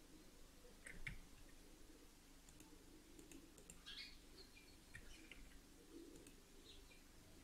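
Near silence: room tone with a few faint, scattered computer mouse clicks.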